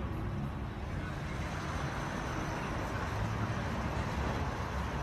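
Steady road traffic noise at a city intersection, heard from inside a car.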